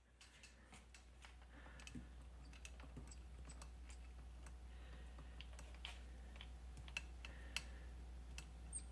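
Faint, irregular light clicks and taps from a cockatoo's claws pawing at a glass jar of macadamia nuts with a wooden lid, the bird asking for its bedtime nut.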